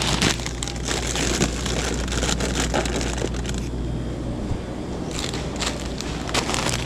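Crinkling and rustling of plastic snack bags being handled, easing off for a second or so about halfway through and then starting again, over a steady low hum.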